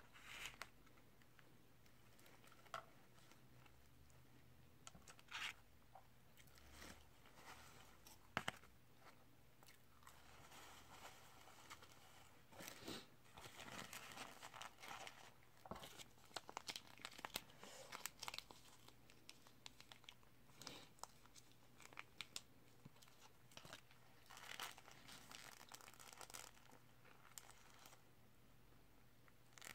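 Faint, close eating sounds: a person chewing and biting into a burger and fries, with the burger's paper wrapper crinkling, most densely around the middle.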